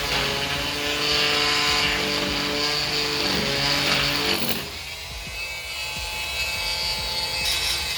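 A power tool cutting wood, undercutting the bottom of a door jamb so flooring can slide beneath it. It runs with a steady whine that shifts pitch a few times, then drops to a thinner, higher hiss about two-thirds of the way through.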